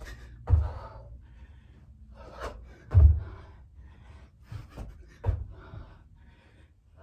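Feet landing from squat jumps on the floor, a low thud about every two and a half seconds, with hard breathing and gasps between the jumps.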